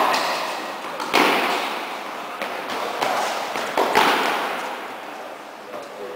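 Tennis rackets striking the ball in a rally: several sharp hits a second or two apart, each with a long echo off the indoor hall, the loudest at the start, about a second in and about four seconds in.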